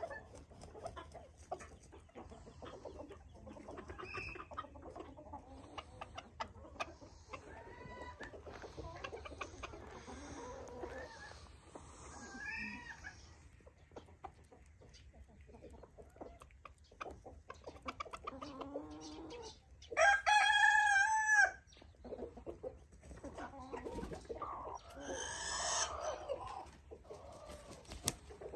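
Chickens clucking and calling, with a rooster crowing once loudly about twenty seconds in and another loud call a few seconds later.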